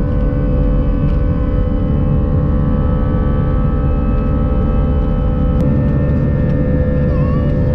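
An airliner's jet engines running at takeoff power, heard inside the cabin during the takeoff roll: a loud, steady, deep rumble with a layer of steady engine whine. There is a single click a little past halfway.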